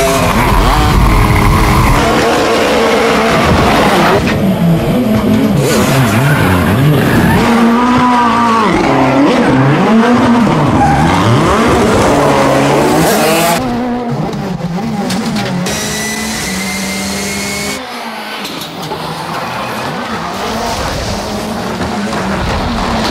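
Rally car engine revving hard up and down again and again, with tyres squealing and skidding under drifting. The sound drops and changes abruptly twice, in the second half.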